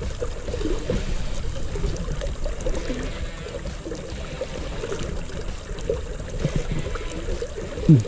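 Flowing river water, with a short louder sound just before the end.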